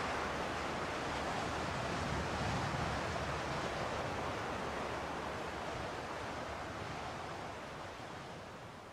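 Wind sound effect: a steady rushing noise that fades out near the end.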